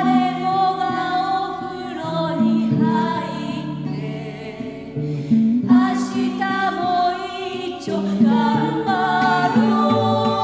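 Women singing a song together, several voices at once holding long sung notes.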